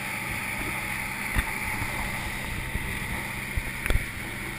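A boat's engine running at speed with a steady drone, under a rush of wind and water from the wake. A few sharp knocks come at about a second and a half in and again near the end.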